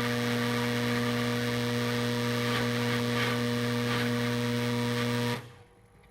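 Homemade 20,000-watt microwave oven running, a steady electrical buzz with a low hum, as it drives an indium-gallium alloy into plasma. The buzz cuts off suddenly about five seconds in.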